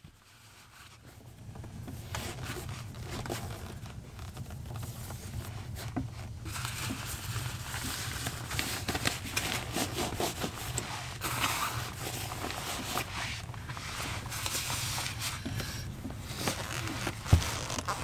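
Rustling and scraping of clothing and winter boots being pulled on and laced, over a steady low rumble. A single sharp knock comes near the end.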